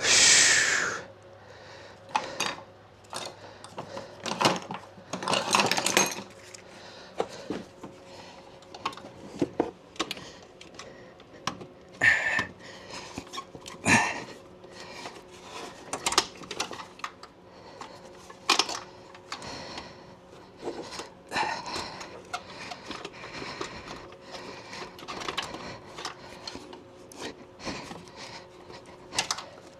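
Hand tools and metal engine parts clinking, knocking and rattling in short, irregular bursts while work goes on in the engine bay.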